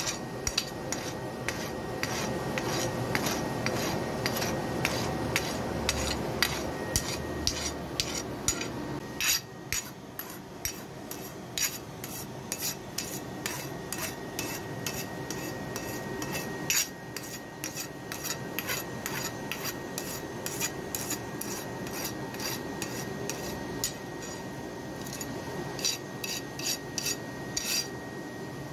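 Hand hammer striking a red-hot laminated iron knife blade held in tongs on an anvil: a steady run of blows, about two to three a second. A steady rushing noise runs underneath.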